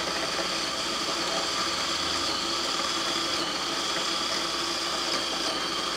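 Countertop electric food processor running steadily, its blade churning a thick, sticky banana-and-almond paste.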